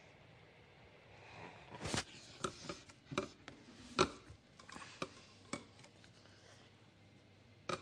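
A run of sharp small clicks and knocks, about ten spread over a few seconds, then one more near the end, over a quiet room background.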